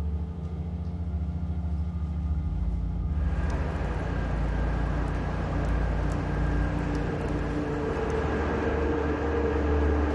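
Soft held music tones, then about three seconds in a steady low rumble and rushing noise of a moving vehicle comes in, with light clicks, and the music's tones continue faintly beneath it.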